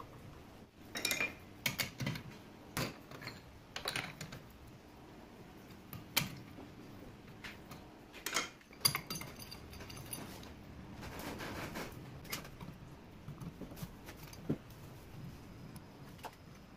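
Scattered metallic clinks and knocks from setting a tube workpiece into the four-jaw chuck of a stopped metal lathe and fitting the chuck key to tighten the jaws. A pair of strikes about halfway through ring briefly.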